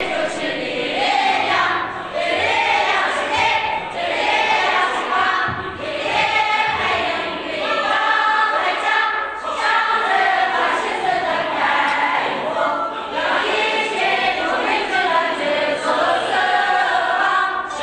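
A large group of voices, mostly women, singing a song together in short phrases, with brief breath pauses about every two seconds.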